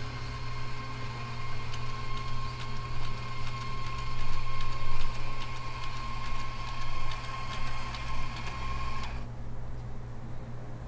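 Electric coffee grinder grinding beans: a steady motor whine with a dense crackle, running about nine seconds and cutting off suddenly. A steady low hum lies underneath.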